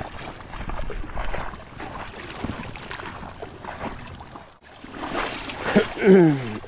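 Shallow river water rushing over stones, with wind on the microphone. Near the end a short loud call, falling in pitch, sounds over it.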